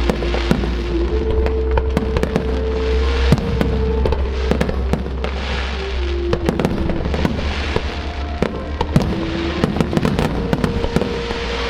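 Fireworks display: a dense run of shell bursts and crackles, many sharp reports close together. Underneath, music plays through loudspeakers, with held notes that step from one pitch to another.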